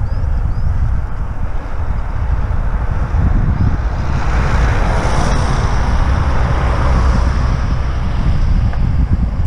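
Wind buffeting the microphone of a camera on a moving bicycle, with a car overtaking about halfway through: its tyre and engine noise swells, then fades as it pulls away.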